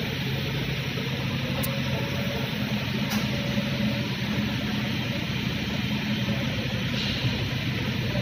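Forklift engine running steadily with a low, even hum, and two brief clicks in the first few seconds.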